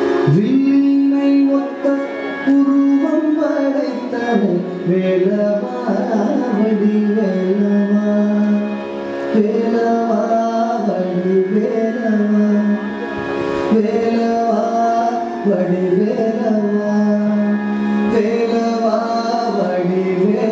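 Carnatic music for Bharatanatyam dance: a sung, gliding melody over a steady drone, with hand-drum strokes.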